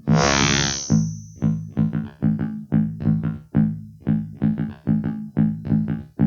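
Quick repeating notes played through a circuit-bent Waldman flanger pedal, several a second, each with a sharp attack and a short decay. At the start a burst of noisy, swirling effect wash with a high whistle fades out over a couple of seconds.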